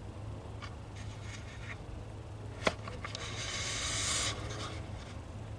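Rustling and handling noise over a low steady hum, with one sharp click about halfway, then a hiss that rises for about a second and cuts off suddenly.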